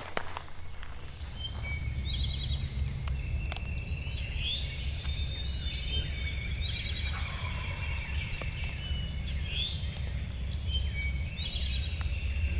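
Several wild birds singing and calling at once, with short quick trills recurring every couple of seconds, over a steady low rumble.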